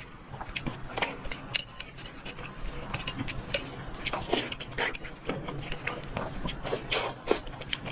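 Close-up eating sounds: a person chewing and smacking food, with frequent irregular wet clicks of the mouth.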